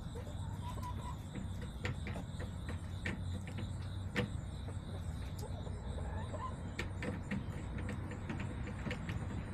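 Backyard hens moving about the coop: scattered sharp taps and clicks, with two soft short calls, one about a second in and one about six seconds in, over a steady low hum.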